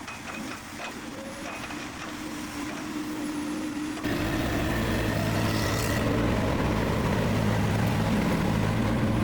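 Skid steer loader engine running steadily. About four seconds in it becomes abruptly much louder and deeper, a steady low engine drone.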